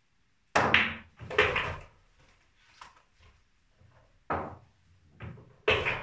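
A snooker shot on a pool table: the cue strikes the cue ball about half a second in and the balls clack together, with another heavy knock about a second later. Several more separate knocks and thuds from the balls and table follow near the end.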